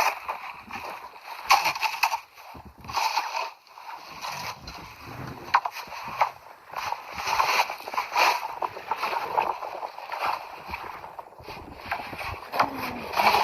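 Packed snow being scraped and broken up, in repeated irregular scraping strokes about once a second.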